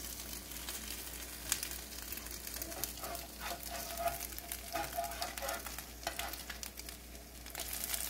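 Egg- and milk-soaked bread slices sizzling and crackling in butter and coconut oil in a skillet, while a metal slotted spatula turns them now and then.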